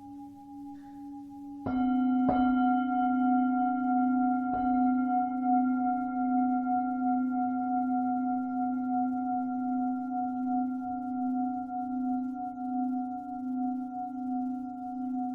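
Lingam singing bowl struck with a mallet three times, two firm strikes about two seconds in and a lighter one a couple of seconds later. It rings on in a long, layered tone whose low hum pulses in slow beats, while an earlier, quieter ring dies away beneath it at the start.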